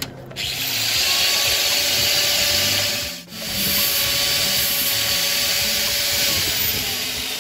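A power grinder, most likely a handheld angle grinder, grinds steel as it takes the broken balancer-shaft pulley stud down flush with the pulley. It makes a steady, loud hiss over a faint motor hum, cuts out for a moment about three seconds in, then carries on.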